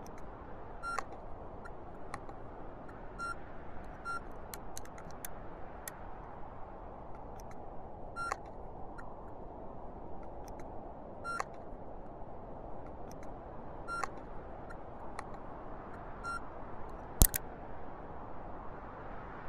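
Steady rushing noise with short electronic beeps every few seconds and scattered sharp clicks, one much louder click near the end.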